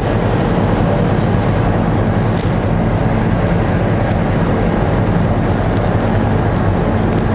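Steady low rumbling hum of kitchen ventilation, with a few faint clicks of metal tongs and a knife on the plate.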